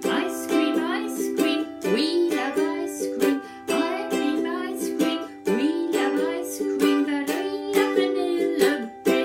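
Music: a ukulele strummed in a steady rhythm, with a voice singing along.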